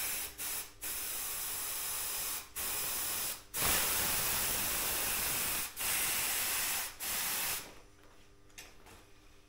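Compressed air from a shop compressor hose hissing at a bicycle wheel's tyre valve in a run of short and longer bursts, filling the new front inner tube; the hissing stops about three-quarters of the way through.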